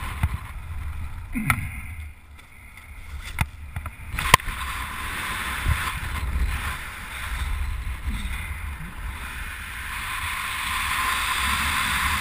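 Airflow buffeting the microphone of a skydiver's head-mounted camera under an open parachute canopy: a low rumble with a hiss that grows steadier in the second half. A few sharp clicks sound in the first half.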